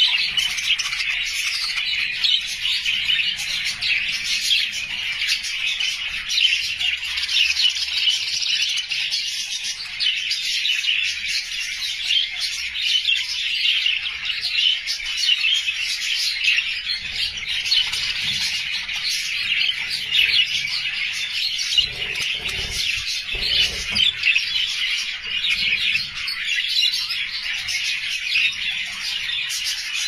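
A flock of budgerigars chattering and warbling: a dense, continuous mix of high chirps and twitters.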